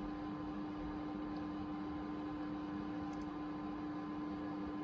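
Steady background hum with a faint hiss, unchanging throughout; no tool or engine activity.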